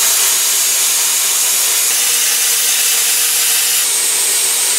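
Hand-held plasma cutter cutting through sheet metal: a loud, steady hiss of the air arc, with a faint steady hum underneath.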